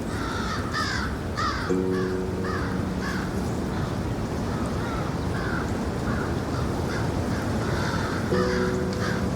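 Crows cawing in a quick run of short calls over a steady hiss. Twice, a low held tone of about a second sounds beneath them.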